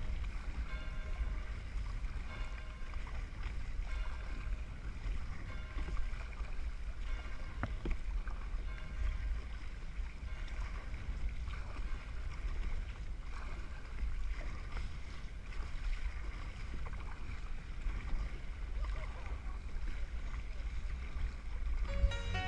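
Hobie Revolution 13 kayak being paddled on a choppy sea: paddle blades dipping and splashing and water slapping the hull, with wind rumbling on the camera microphone.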